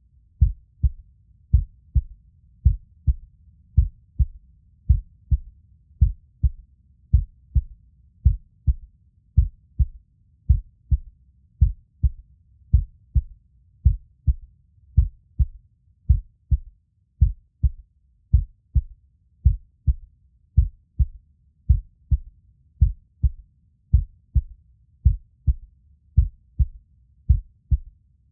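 Human heartbeat sound: a slow, even rhythm of low, muffled lub-dub thumps, each beat a pair of soft strikes.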